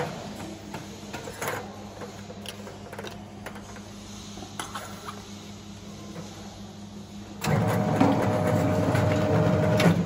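Semi-automatic aluminium can seamer humming, with light clicks and knocks as cans and lids are handled on its turntable. About seven and a half seconds in, a much louder whirring with a steady whine starts as the seaming head spins the can and crimps the lid on, lasting about two and a half seconds.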